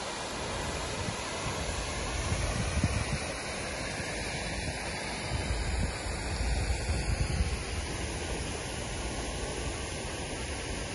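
Water from a tall fountain jet falling back into a pond, a steady rushing hiss, with wind buffeting the microphone in low gusts about two to three seconds in and again around six to seven seconds.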